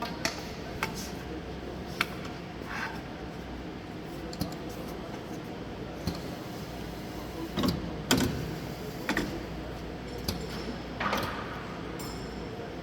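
Scattered clicks and knocks of parts being handled at a corner press, about a dozen at irregular intervals, over a steady machine hum.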